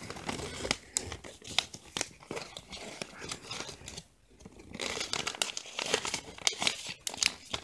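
Crinkling of a printed plastic packaging pouch as it is handled and shaken to tip small toy figures out, in a string of short crackles with a brief lull about four seconds in.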